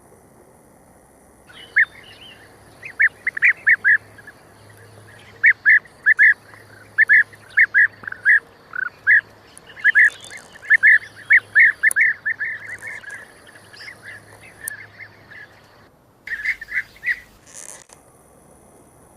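A bird calling in rapid runs of short, sharp notes, several a second, with brief pauses between runs and one last short run near the end.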